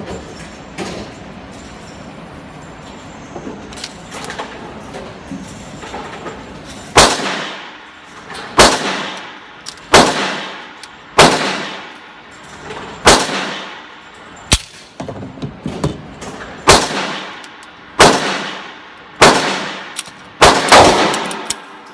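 Semi-automatic pistol firing about ten shots, roughly one every second and a half, with two in quick succession near the end; each shot rings and echoes off the hard walls of an indoor range booth. Before the first shot, about seven seconds of light handling clicks.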